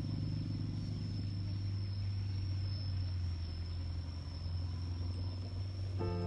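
A motor running steadily with a low, even hum, and a thin steady high whine above it. Music comes in near the end.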